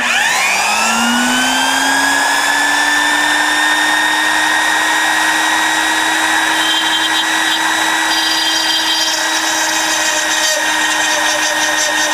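Electric drill starting up, its whine rising in pitch over the first second or so, then running steadily while it bores a hole through a thin barometer glass.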